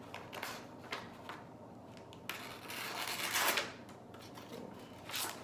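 A large folding cleaver knife's stainless blade slicing through paper: a few short rustling cuts, then a longer one from about two to three and a half seconds in.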